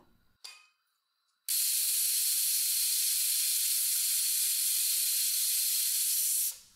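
Pressure cooker whistle: steam hissing hard out of the weight valve for about five seconds as the cooker reaches pressure, starting suddenly and cutting off abruptly. A faint click comes just before it.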